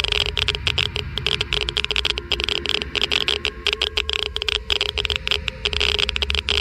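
Geiger counter clicking rapidly and irregularly, many clicks a second, as it counts ionizing particles, over a steady low hum.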